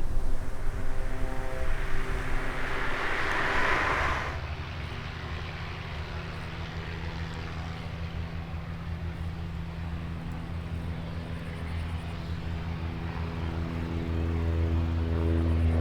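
Light propeller aircraft engine running. About four seconds in the sound changes abruptly to a steadier, lower engine tone, which grows louder near the end.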